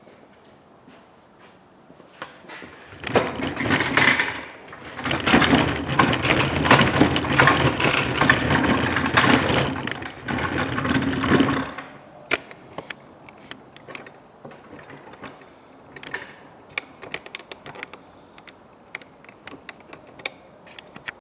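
A power tool abrading metal parts, running loudly for about nine seconds with a thin high whine on top, then stopping; after it, light scattered clicks and taps of small metal parts being handled.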